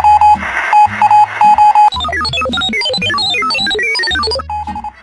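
Background music: an alarm-clock-like beeping figure in quick groups over a bass line, broken for about two seconds in the middle by a fast run of tumbling synth notes, after which the beeping returns.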